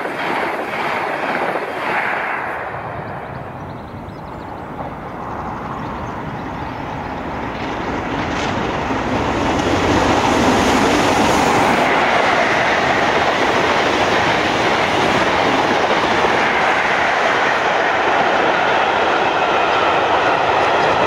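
A First Great Western express's coaches rush past close by and fade in the first few seconds. Then the steam locomotive 46100 Royal Scot, a former LMS 4-6-0, approaches, getting steadily louder, and passes at speed about ten seconds in, followed by its rake of coaches running by loudly on the rails.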